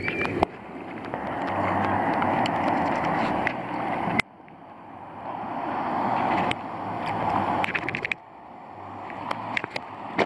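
Seawater sloshing and washing against a camera held at the surface. It is a rushing noise that builds up over a few seconds and cuts off suddenly, twice, with small clicks and splashes through it.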